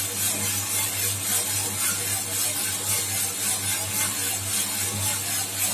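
A Super Roaster 3.5 kg drum coffee roaster running with a fresh charge of beans tumbling in the drum: a steady low hum under a rustling, hissing wash.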